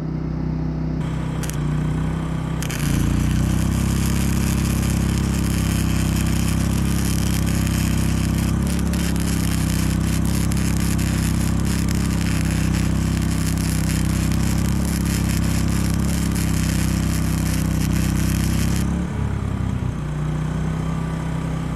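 Flux-core wire-feed arc welding: the welder's arc crackles steadily for about sixteen seconds, starting a few seconds in and stopping near the end. Underneath, the inverter generator's engine runs, speeding up as the arc draws load and dropping back once the arc stops.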